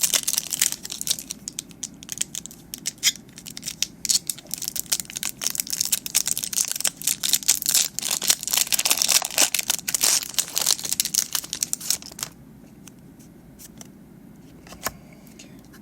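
Foil wrapper of a Pokémon card booster pack crinkling and tearing as it is opened, a dense run of quick crackles for about twelve seconds. Then it goes much quieter, with a couple of faint ticks near the end.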